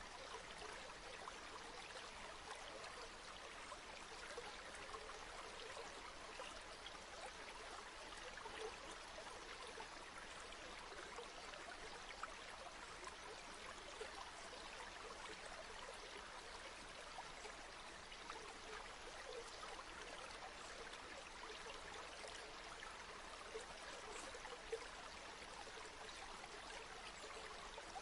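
A river flowing steadily, a soft even rush of water with small splashes and gurgles flickering through it.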